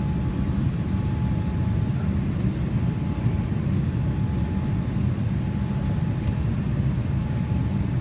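Steady low rumble of engine and airflow noise inside the cabin of a Boeing 787-8 Dreamliner in flight, with a faint steady whine above it.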